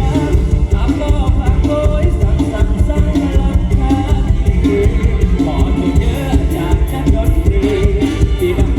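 Loud Isan stage-show music: a singer over a band with a heavy, driving beat.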